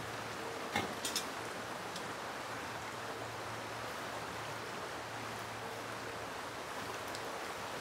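River water rushing steadily, with a few short clicks about a second in.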